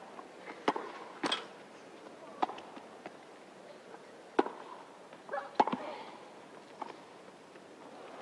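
Tennis rally: sharp racket-on-ball hits and ball bounces trading back and forth, about one every second or so. One shot a little past halfway comes with a short vocal grunt from the hitter.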